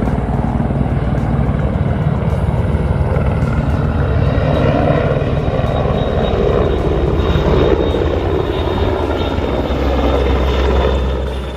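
Canadian Air Force helicopter flying low and close: loud, steady rotor and engine noise with a thin high whine, cutting off abruptly at the end.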